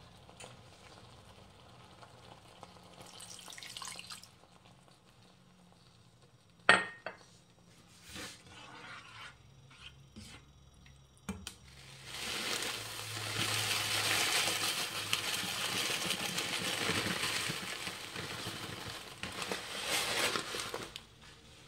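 A spoon scraping and stirring in a non-stick wok, with one sharp knock against the pan. About twelve seconds in, water goes into the hot creamy sauce and the pan sizzles and bubbles loudly for several seconds, easing near the end.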